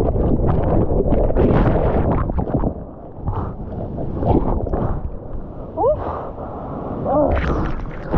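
Churning whitewater of a broken wave heard from a camera caught in it: a loud rush of water for about the first three seconds, then muffled underwater gurgling with short rising bubble sounds, and a splash as the camera breaks the surface near the end.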